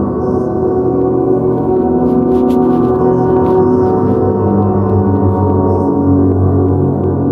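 Ambient drone music played live: a loud, dense wash of many steady overlapping tones that holds without a break, with a few faint clicks about halfway through.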